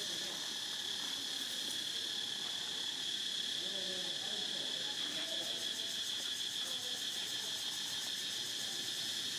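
Steady, continuous high-pitched drone of a forest insect chorus, with a few faint wavering pitched sounds about four to five seconds in.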